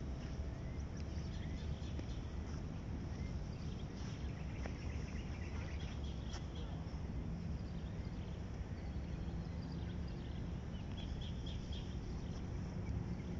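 Outdoor ambience: a steady low rumble with a few faint bird chirps, about a second in, around four seconds in and near the end.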